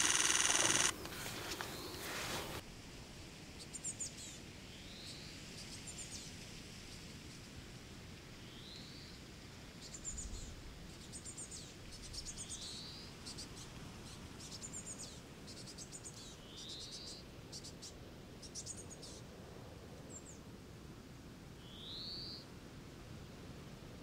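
Small finches calling: thin, high chirps and short rising call notes every second or two, over a faint outdoor hiss. A brief loud burst of noise at the very start is the loudest sound.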